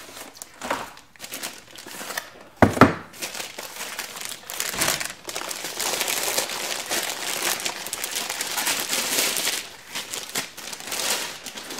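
Plastic packaging crinkling and rustling as a laptop and its wrappings are lifted out of a cardboard shipping box, with two sharp knocks about two and a half seconds in.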